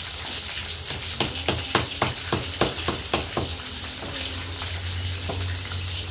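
Oil sizzling steadily in a wok as battered food fries. Starting about a second in comes a run of about nine quick knocks, roughly four a second, from the counter, and there is one more knock near the end.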